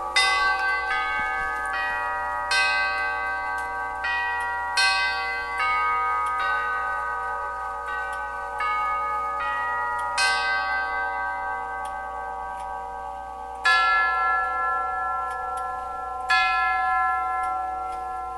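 Howard Miller grandfather clock's tubular chimes striking nine: a chime tune of single hammer-struck notes a little under a second apart, then, about two-thirds in, slower single strokes a couple of seconds apart as the hour strike begins, each note ringing on. The hammers' leather pads are worn and hardened, which gives the tubes a tinny, high ring.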